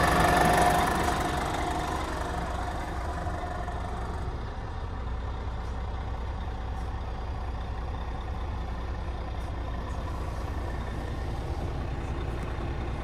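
Scania G440 truck's diesel engine idling, heard from inside the cab: a steady low rumble. It is louder with a higher-pitched tone for the first second or so, then settles to an even idle.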